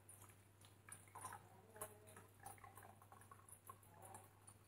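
Water poured from a jug into the plastic tank of a handheld facial steamer, heard only as faint scattered drips and small ticks against near silence.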